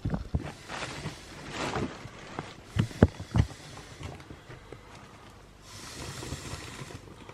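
A few knocks and thumps with rustling, the loudest knocks about three seconds in, then a breathy hiss near the end.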